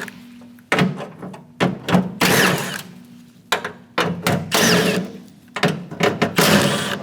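Ratchet with a 10 mm socket undoing the door-handle nuts, working in a series of short bursts about once a second with brief pauses between.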